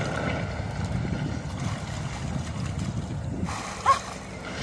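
Wind buffeting the microphone over river water, with swimmers' splashing, and a brief high yelp from a person about four seconds in.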